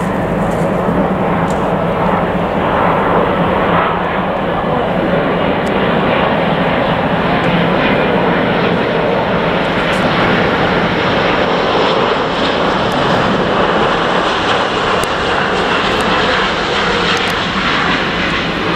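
Jet noise from an Airbus A350's Rolls-Royce Trent XWB engines as the airliner passes low on final approach to land. It is a loud, steady rush that holds level throughout.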